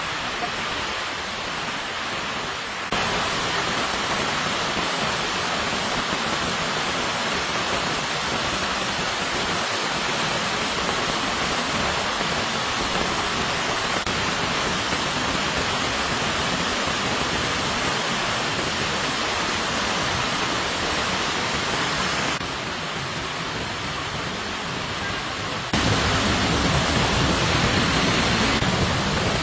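Heavy, steady rain hiss. It grows louder and brighter abruptly about three seconds in, dips near the end, then comes back louder and fuller.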